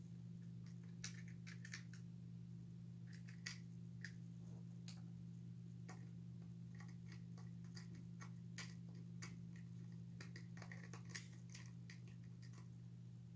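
Scattered light clicks and taps of small screws and plastic parts being handled during assembly, at irregular intervals, over a steady low hum.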